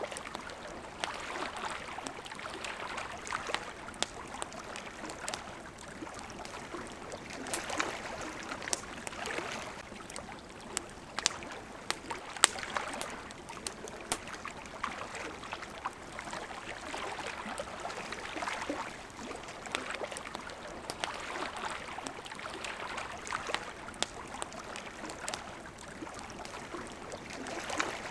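Water lapping at a riverbank in gentle swells every few seconds, with a wood campfire crackling in scattered sharp pops throughout; one pop about halfway through stands out as the loudest.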